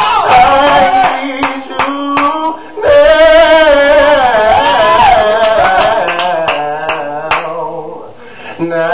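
Male voice singing a gospel ballad through a microphone and PA: wordless melismatic runs and long held notes with wide vibrato, over sustained low instrumental notes, fading down near the end.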